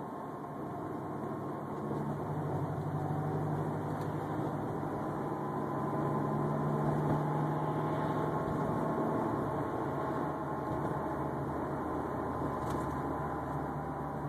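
A steady whining hum of several held tones with an unidentified source. It grows a little louder about two seconds in and again around six seconds.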